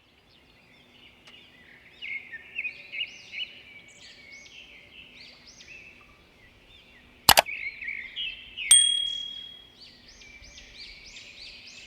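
Birds chirping and singing in many quick, repeated high notes. A sharp click sounds about seven seconds in, and a ringing ding follows about a second later.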